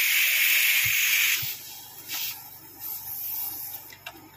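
Compressed air hissing out of an oxygen concentrator's nebulizer outlet. It cuts off about a second and a half in, and two short, fainter hisses follow.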